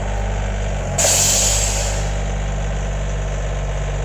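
Kioti CK3510 tractor's diesel engine running steadily. About a second in comes a sudden loud rush of escaping air, fading over a second or so: a tire blowing out as its valve stem pops out under the strain of lifting a tree.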